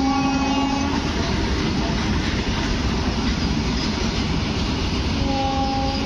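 Loaded freight train of open wagons rolling past close by, a loud steady rumble of wheels on rail. A train horn sounds for about the first second and again from about five seconds in.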